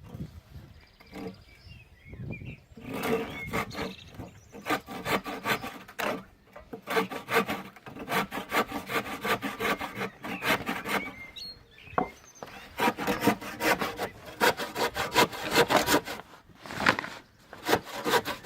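Spear & Jackson Predator 8 PPI hand saw cutting through a thick chunk of wood, in quick back-and-forth strokes that begin about three seconds in, with a brief pause partway through. The blade has gone dull after about a week's use and is struggling to bite, which the owner puts down to it being virtually blunt.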